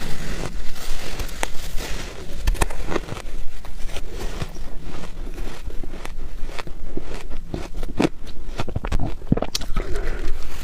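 Close-miked biting and chewing of soft freezer frost and shaved ice, a dense run of irregular crackling crunches.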